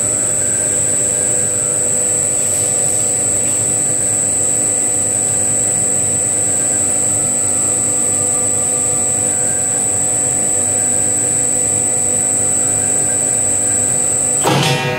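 DIEX GTM4/20 saw-blade tensioning machine running, rolling tension into a large circular saw blade: a steady mechanical hum with a constant high-pitched whine. It cuts off abruptly near the end.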